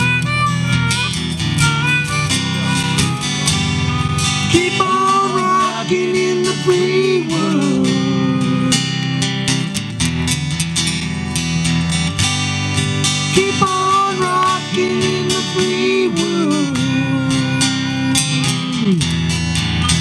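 Live country-rock band music: strummed acoustic guitar and electric guitar over drums, with a lead melody line that bends in pitch.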